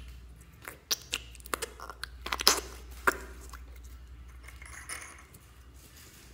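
Clear blue slime squeezed out of its small plastic tub and worked in the fingers, giving a quick run of sticky clicks and pops in the first half, then softer squelching as it is stretched.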